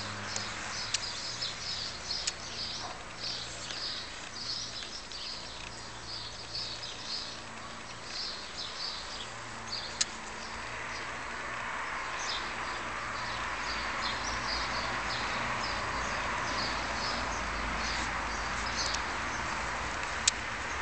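Small birds chirping busily in quick short high notes, thinning out after about halfway. Meanwhile a broad rush of outdoor noise swells and holds, with a couple of sharp clicks.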